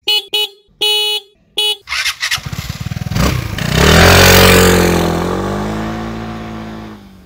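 Four short beeps, then a Vespa GTS scooter's single-cylinder four-stroke engine approaching and passing close by. It is loudest about four seconds in, drops slightly in pitch as it goes past, and fades as the scooter rides away.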